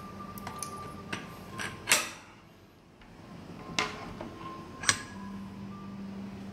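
Hard clicks and knocks of the top mould being pushed into the body of a hand-press button badge machine: half a dozen sharp knocks, the loudest about two seconds in with a brief ring, and two more near the middle.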